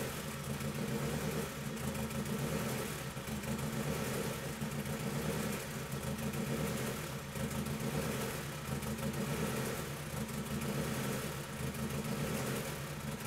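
Turbocharged Honda Civic four-cylinder engine idling steadily. It is running far too rich, below the 7.35 air-fuel ratio floor of the wideband gauge, even with fuel being pulled out.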